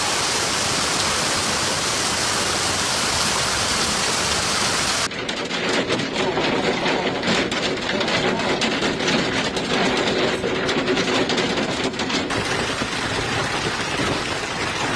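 Heavy hailstorm: a steady hiss of hail and rain, then, after a cut about five seconds in, a dense, irregular clatter of many hailstones striking hard surfaces.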